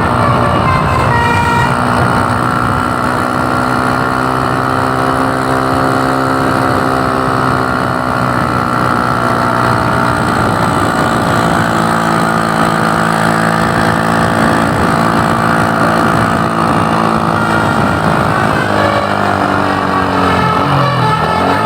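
A road vehicle's engine running steadily at speed, its pitch slowly rising and falling, with a brief dip and pick-up near the end.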